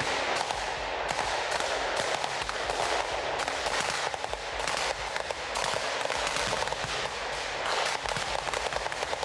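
Small-arms gunfire: many irregular shots and short bursts overlapping in a continuous crackle.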